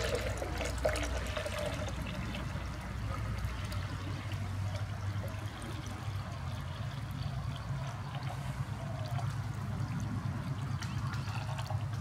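Compost tea poured in a steady trickling stream from a plastic pipe container into a plastic jug that is already partly full, with a low steady rumble underneath.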